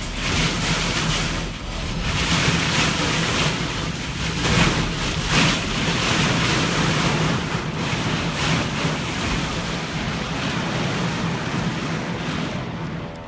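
Torrential wind-driven rain pouring onto pavement and cars, with strong gusts buffeting the microphone; the rush swells and eases with the gusts.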